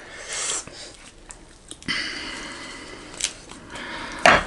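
Close-up eating sounds at a table: sniffing and soft rustling of food being torn and handled, a few light cutlery clicks, and one sharp knock on the plate or table near the end.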